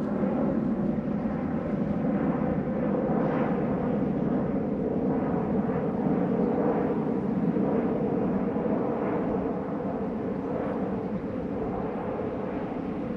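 Class 207 'Thumper' diesel-electric multiple unit's English Electric diesel engine running with a steady drone. It builds over the first second or two and eases slightly near the end.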